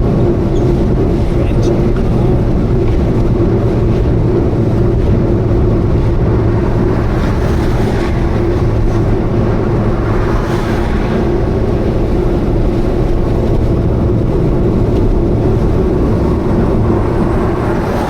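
Subaru Vivio's 660 cc four-cylinder engine and road noise at steady highway cruise, a constant droning hum with no change in pitch. The hum is the abnormal noise that the owner suspects is an exhaust leak.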